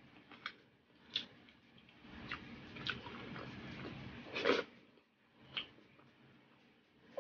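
Close-up mouth sounds of someone eating saucy barbecue pork ribs by hand: a string of short wet smacks and clicks from chewing and lips, the loudest about four and a half seconds in, with steadier chewing noise in the middle.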